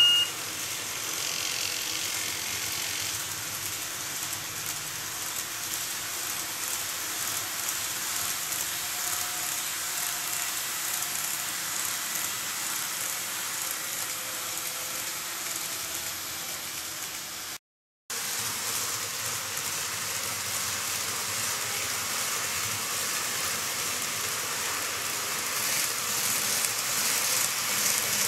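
N-gauge KATO KiHa 283 series model diesel train running on its track: a steady mechanical whir and rattle of the motor and wheels on the rails, which cuts out briefly about two-thirds of the way through and grows a little louder near the end as the train comes close.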